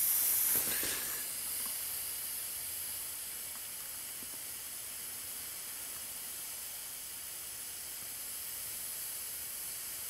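Butane soldering iron burning with a steady gas hiss, a little louder in the first second.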